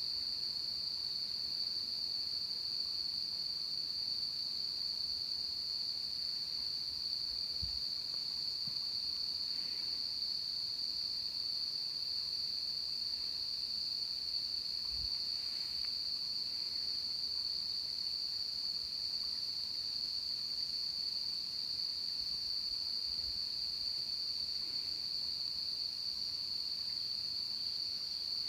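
A dense chorus of insects calling at dusk, one steady high-pitched unbroken trill with no pauses, loud enough to fill the recording.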